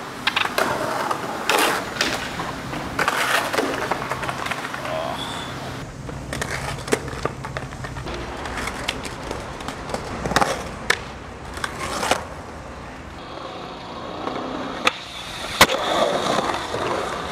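Skateboard on concrete: urethane wheels rolling over rough pavement, with sharp clacks of the board hitting the ground and landing at irregular moments across several takes.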